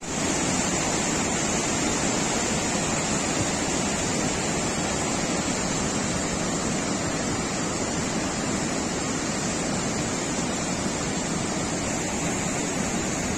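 Muddy flash-flood torrent laden with stones and debris rushing down a rocky stream channel: a steady, unbroken rush of water.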